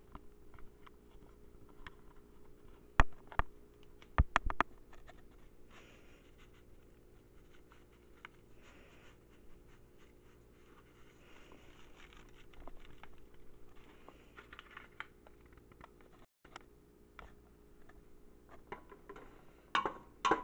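Cooking sounds at a pot of boxed macaroni and cheese: a few sharp knocks about three and four seconds in, then soft rustling and scratching as cheese powder is poured onto the pasta and it is stirred with a wooden spoon, over a steady low hum.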